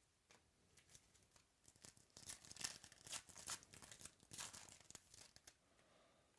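Crinkling and tearing of a foil trading-card pack wrapper. It is a dense run of quick crackles that starts about a second and a half in and stops about a second before the end.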